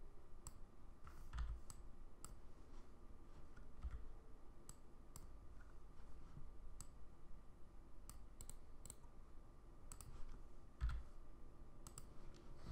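Quiet, irregular computer mouse clicks, a dozen or more scattered through the stretch, with a few soft low thumps in between.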